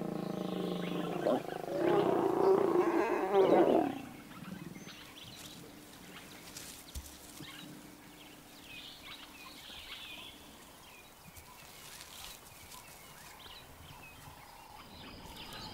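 Lions growling and snarling while mating: a low growl, then a loud snarl for about two seconds that cuts off abruptly about four seconds in. After that only faint background sound remains.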